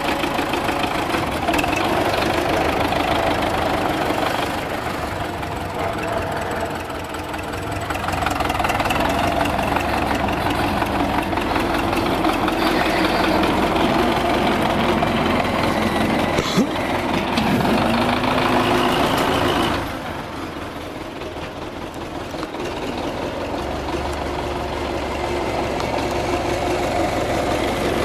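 Diesel engine of a wheeled front-loader tractor running as it manoeuvres, its sound swelling and easing. There is a single sharp knock about 16 seconds in, and the engine is quieter for a few seconds after about 20 seconds before building back up.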